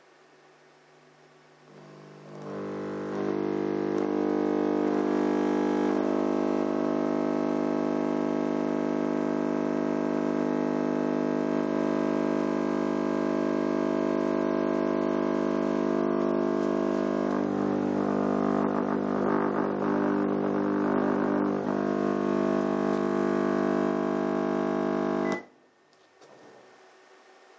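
Subwoofer playing a loud low test tone, driven hard so it comes out as a dense buzz of overtones. It switches on about two seconds in, swells to full level within a second, and cuts off suddenly near the end. A grittier rattle joins it for a few seconds in the middle.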